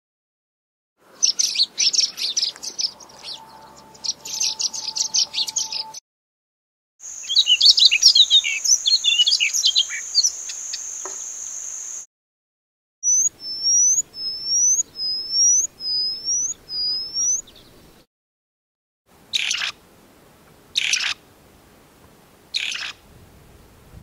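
Recordings of several different wild birds, cut one after another with short silences between them. First comes a fast twittering song. Next is chattering under a steady high tone. Then come six separate rising-and-falling whistled notes, and last, three short, sharply falling calls.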